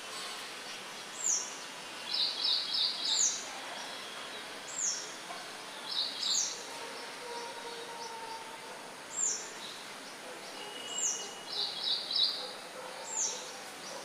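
Small birds calling over a steady outdoor hiss: a short, high note sliding downward repeats every one to two seconds, and three times a quick cluster of three or four chirps joins in.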